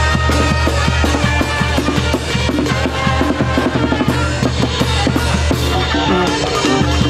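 Street band music heard right at the percussion: a bass drum beaten with a felt mallet, a cymbal mounted on the drum and a snare drum keep a steady beat, with sustained notes from the band's pitched instruments behind them.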